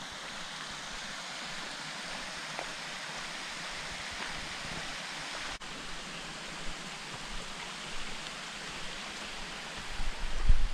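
Steady rushing of creek water, an even hiss with no rhythm. Near the end, loud low rumbling bumps of wind buffeting the microphone.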